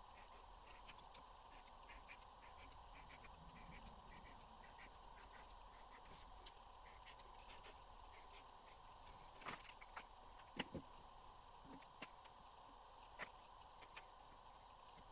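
Faint scratching of a paint-pen marker being drawn across paper, with a few light sharp clicks in the second half.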